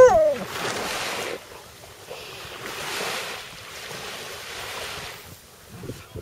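A Malamute's howl ends with a falling pitch in the first half second. Then waves wash in twice, with wind buffeting the microphone.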